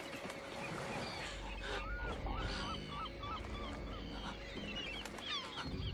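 Seabirds calling: a quick run of about six short, hooked cries about two seconds in, with fainter higher chirps, over the steady wash of open sea.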